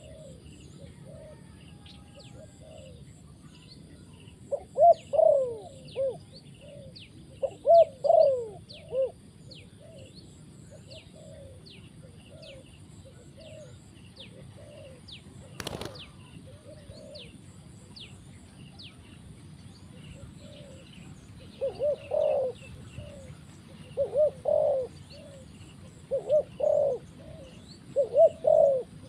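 Spotted dove cooing in short phrases of several notes, a few seconds in and again through the second half. Faint high chirps of small birds run underneath, with a single sharp click near the middle.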